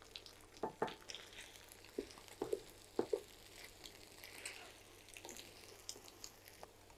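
A wooden spatula stirring mashed potato and egg in a frying pan, with a faint sizzle of oil and a few light knocks of the spatula against the pan.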